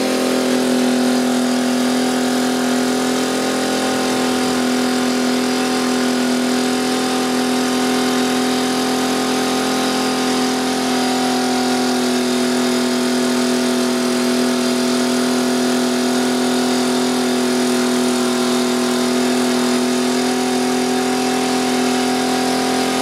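Honda EU2000i inverter generator running at a steady engine speed, its pitch shifting slightly a few seconds in and again about halfway through.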